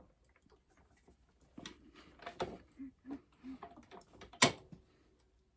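Scattered clicks and knocks of metal engine parts and tools being handled during a teardown, with one sharp knock near the end.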